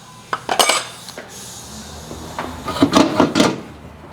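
Hand tools knocking and scraping on metal suspension parts as they are unbolted: a few separate clanks, then a quick cluster of them about three seconds in, over a steady low hum.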